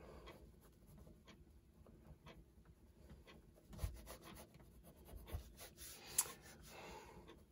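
Pencil lead scratching faintly on toned sketchbook paper in short drawing strokes. Soft knocks about four and five and a half seconds in, and a sharper click about six seconds in.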